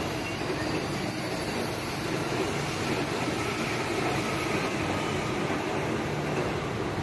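KRL electric commuter train running away along the track, a steady rumble of its wheels on the rails that grows a little quieter in the second half.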